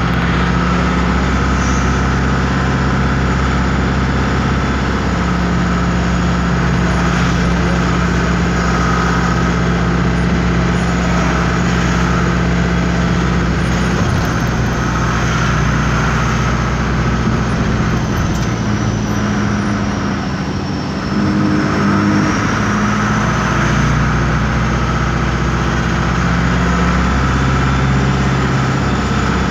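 Air-cooled Deutz diesel engine of an Otokar M-2000 bus, heard loud from inside the bus as it runs. Its note steps up and down several times, with a brief dip about two-thirds of the way through.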